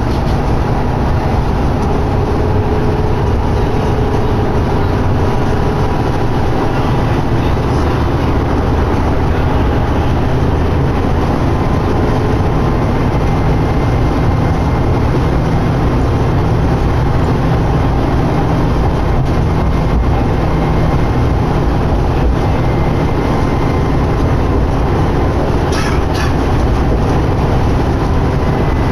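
Inside a 2011 New Flyer D60LFR articulated diesel bus under way: a steady low drone of engine and road noise with a faint whine, and a brief rattle near the end.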